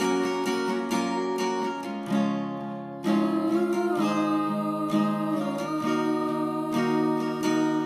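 Music: strummed acoustic guitar chords with sustained notes.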